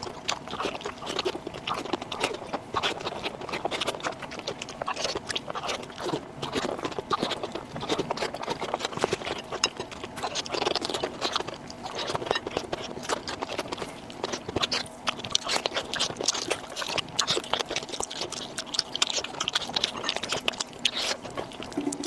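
A person eating close to the microphone: continuous chewing and mouth sounds made of many small irregular clicks and smacks.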